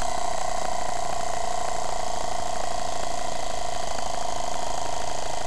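Small battery-powered air compressor running steadily with a constant whine, pumping up the air supply of a homemade pneumatic rifle.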